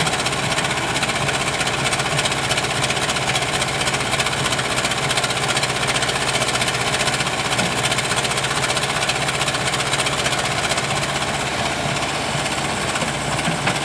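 JCB backhoe loader's diesel engine running steadily while the backhoe arm works.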